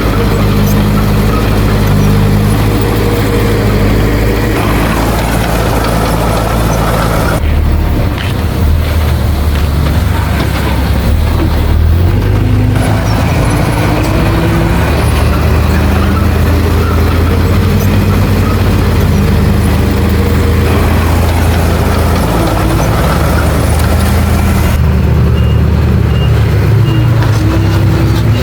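Heavy diesel engines of earthmoving machinery running steadily, the engine note shifting a few times. Near the end a reversing alarm starts beeping at an even pace.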